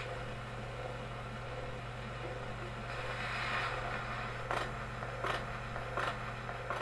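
A 78 rpm gramophone record played through a 1930 two-valve amplifier and loudspeaker after the music has ended: a steady low hum and surface hiss, then, from about two-thirds of the way in, a regular click about every three-quarters of a second as the stylus rides the run-out groove.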